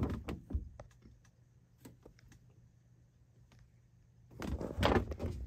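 Handling noise: short rubbing and clicking sounds in two clusters, one at the start and a louder one about four and a half seconds in, with a faint steady low hum between them.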